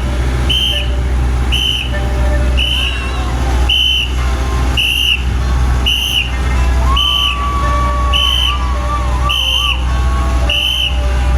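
A short, high-pitched beep repeats about once a second, ten times, over a steady low hum from running machinery. About two thirds of the way through, a separate wavering whistle-like tone comes in.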